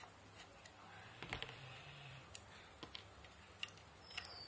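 Faint, scattered clicks and taps of a screwdriver tip and fingers against the plastic housing and small circuit board of a rechargeable LED table lamp as the board is pried loose, about half a dozen in all.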